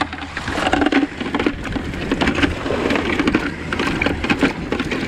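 Irregular crackling and pattering of a wet cast net being shaken out over a plastic bucket, with small baitfish dropping and flapping inside it.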